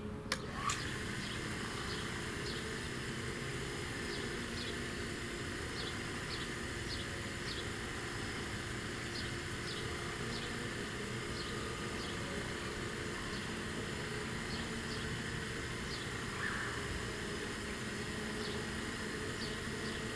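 Thunderbolt 1000ATSC siren's rotator running at its 4 RPM setting: a steady, unchanging hum. There is a click just under a second in, and faint, short, high chirps repeat throughout.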